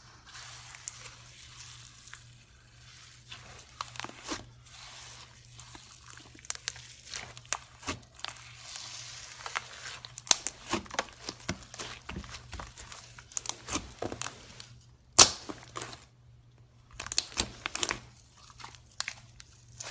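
Glitter slime being squished and stretched by hand, with many small crackling pops and clicks, one much louder click about fifteen seconds in.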